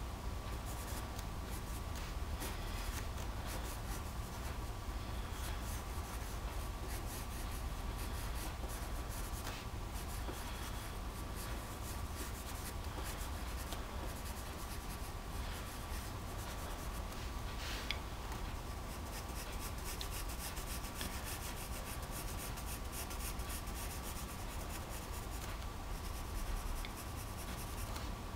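Blue coloured pencil scratching across A4 paper in many short, quick strokes, over a faint steady electrical hum.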